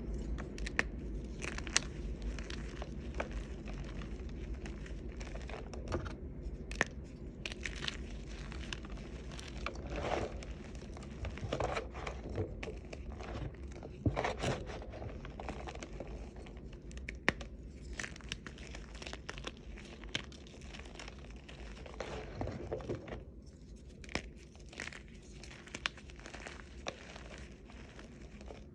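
Crunchy reformed chalk crunching and crumbling close to the microphone: many irregular sharp cracks over a low steady hum.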